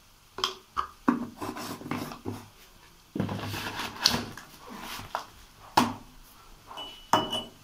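Kitchen clatter of utensils in a kadhai while spices are mixed into frying onion and garlic: several sharp knocks, with a second of scraping in the middle and a brief high squeak near the end.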